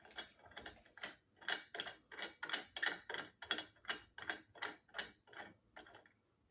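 Small screws on a doorbell mount's clamp being tightened with a screwdriver: a steady run of sharp clicks, about four a second, growing fainter near the end.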